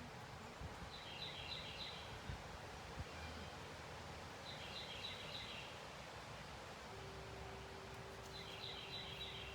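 A songbird repeats the same short, quick phrase three times, about every three and a half seconds, over a low rumble of wind. Near the end a single faint wind-chime tone begins to ring and holds.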